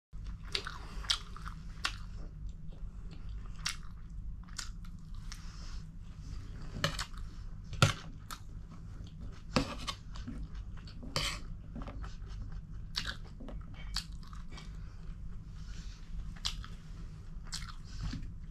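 A person chewing and biting food, with irregular wet clicks and crunches of the mouth, over a steady low hum.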